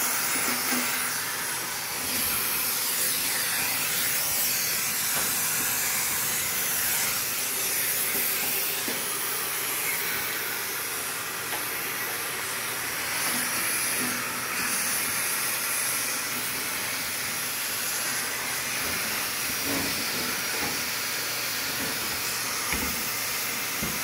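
Vacuum cleaner running steadily, drawing air through a long, flexible lint-cleaning hose attachment that is pushed down into a dryer's lint-trap slot. It is a constant airy hiss of suction as it pulls lint out of the trap housing.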